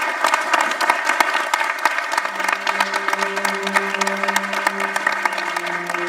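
Theatre audience applauding, dense fast clapping, with background music holding long sustained notes underneath; a low held note comes in about two seconds in.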